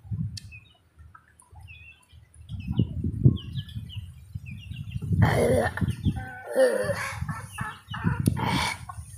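A rooster crowing, starting about five seconds in, over small birds chirping. Before it come low rumbling bumps close to the microphone.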